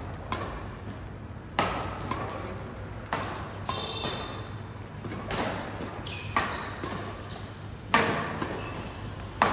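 Badminton rally: rackets strike a shuttlecock about seven times, a sharp crack every second or so that rings in a large hall, with brief shoe squeaks on the court floor between shots.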